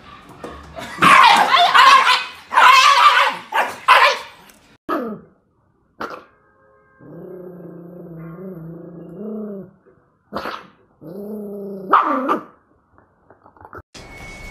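Dogs barking in loud, quick bursts for a few seconds, then a long steady low growl and a shorter growl that rises in pitch at its end.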